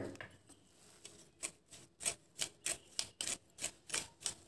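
A spoon working powdered sugar through a metal mesh sieve: a quick run of short scrapes, about three or four a second, starting about a second and a half in.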